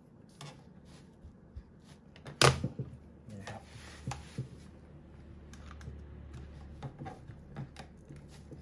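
Hands fitting the battery into an airsoft rifle's buttstock and closing it up: scattered small clicks and knocks of plastic and metal parts, with one sharp, loud click about two and a half seconds in.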